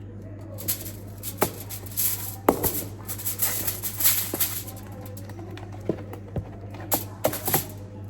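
Soft, sticky slime being kneaded and stretched by hand: wet squelches and little crackling pops, in two spells with a short lull between them.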